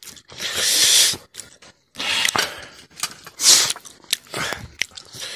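Close-up eating sounds from people eating rice and broth by hand from steel plates: two noisy hissing slurps, about a second in and again about three and a half seconds in, among smacking and sharp clicks of metal.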